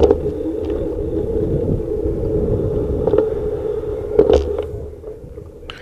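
Steady rolling rumble and hum of a bicycle ride on city pavement, picked up by a camera mounted on the handlebars, with a few sharp knocks as the bike jolts over the paving. It falls quieter near the end.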